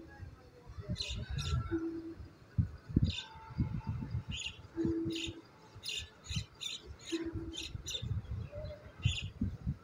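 Small birds chirping, with a short low call repeating about every two and a half seconds. Under them are soft irregular knocks and rubs from the metal Mayfield skull clamp being handled as its pins are fitted.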